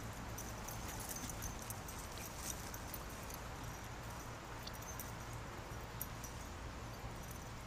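Two dogs, a beagle puppy and a small black dog, playing on grass: faint scuffling and light clicks over a steady low hum.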